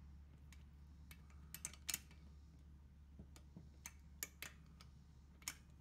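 Torque wrench ratcheting on the cylinder-head bolts: a dozen or so light, scattered clicks, singly and in quick pairs, over a faint steady hum.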